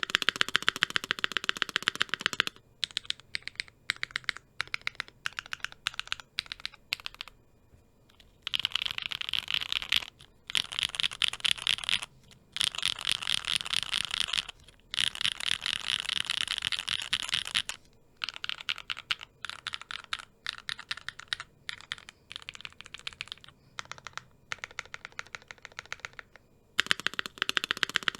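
Typing on a MonsGeek M2 mechanical keyboard with stock Gateron switches, an FR4 plate, TX stabilizers and GMK doubleshot ABS keycaps, foam- and tape-modded. Fast runs of keystrokes alternate with slower, single key presses, with a last quick run near the end.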